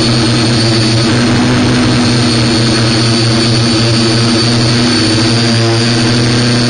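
Multirotor drone's electric motors and propellers running steadily in flight: a loud, even hum with a thin high whine above it.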